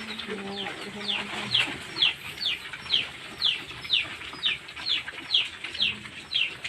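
Chicks peeping: a steady series of short, high, falling peeps, about two a second.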